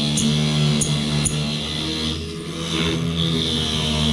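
Small bench-top mini lathe with its motor running steadily while sandpaper is held against the spinning wooden dowel, giving a steady sanding hiss that dips briefly a little past halfway.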